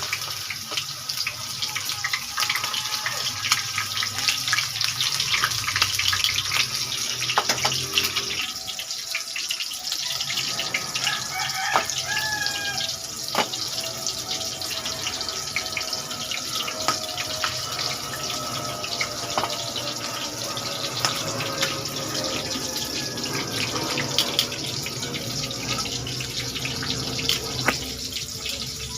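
Tilapia frying in a pan of hot cooking oil: a steady sizzle with many small irregular crackles and pops.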